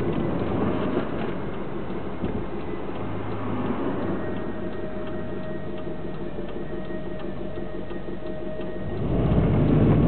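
Car cabin noise while driving: engine and tyre rumble with a turn indicator ticking steadily. The rumble grows louder about nine seconds in.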